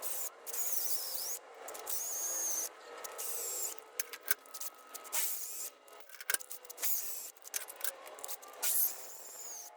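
Electric drill boring out the head of a seized cap-head bolt in the end of a motorcycle crankshaft, run in stop-start bursts with a high, wavering whine from the bit as it cuts.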